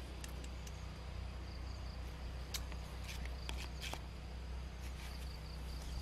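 Outdoor ambience: a steady low rumble with a faint, pulsing high insect trill. A handful of light clicks and rustles come as small plums are handled, most of them between about two and four seconds in.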